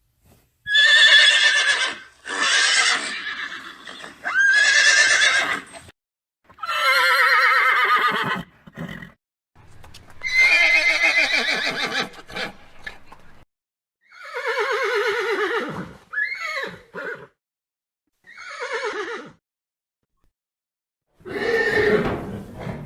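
Horses neighing and whinnying: about nine separate calls, each a second or two long with a quavering pitch, with short silences between them.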